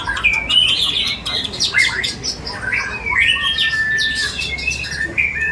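Many songbirds singing over one another at a songbird contest: a dense tangle of whistles, trills and harsh chatter, with one long steady whistle in the middle.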